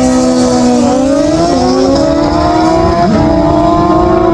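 Racing motorcycle engine sound effect, revving: a loud, steady high engine note that climbs in pitch in two steps and holds.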